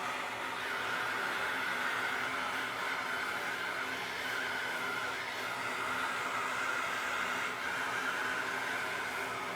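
Soldering torch burning with a steady hiss while heating a copper pipe fitting to sweat it.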